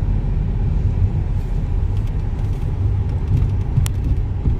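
Car driving slowly, heard from inside the cabin: a steady low rumble of engine and tyres. A light click comes about four seconds in.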